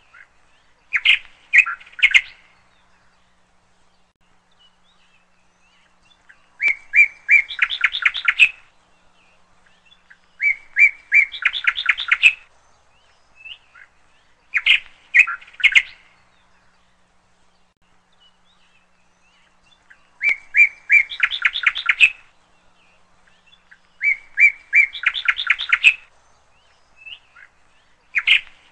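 A songbird singing: phrases of quick, evenly repeated chirps, each up to about two seconds long, with pauses of a few seconds between them.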